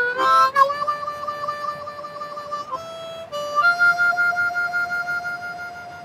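Slow blues riff on a C diatonic harmonica, one note at a time. A long draw note wavers under a cupped-hand effect, then two short notes lead up to a higher note held to the end.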